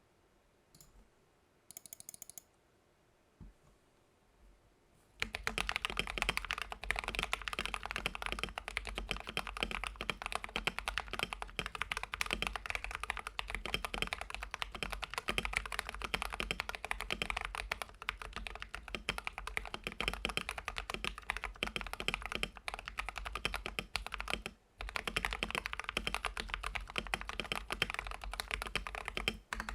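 Regular typing on a Gamakay LK67 (TM680) mechanical keyboard with lubed and filmed AKKO CS Ocean Blue tactile switches, Honey and Milk XDA keycaps, foam-filled case and tape mod. It starts about five seconds in after near-quiet, as a dense run of rapid keystrokes with a brief pause about three quarters of the way through.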